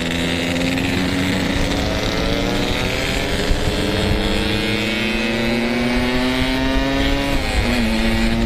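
Yamaha RX-King two-stroke single-cylinder motorcycle engine under way, its pitch climbing steadily for about seven seconds as it accelerates, then dropping sharply near the end with an upshift and holding steady.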